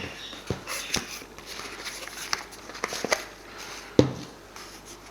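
Aquarium heater parts and their packaging being handled: a scattering of light clicks and taps, with a louder knock about four seconds in.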